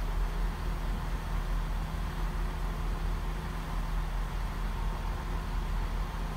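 Diesel train engine idling, a steady low hum that neither rises nor fades.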